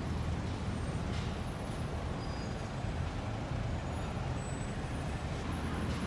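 Steady low rumble of road traffic and running vehicle engines, with a couple of faint short hisses about a second in.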